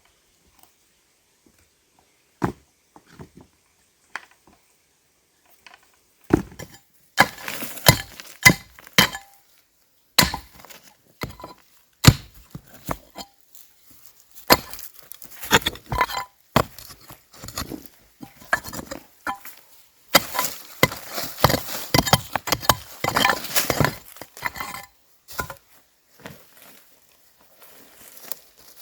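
Wood being chopped with a bladed hand tool: irregular sharp chops and clinking knocks, a few scattered ones at first, then many in quick runs, with rustling between.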